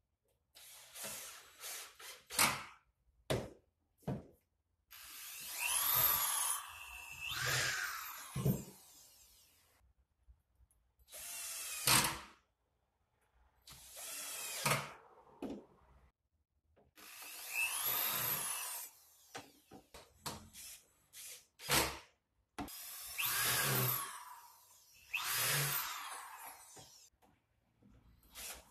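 Cordless drill-driver driving screws into MDF cabinet panels in about ten short runs, the motor's pitch rising and falling as each screw goes in, with brief pauses between runs.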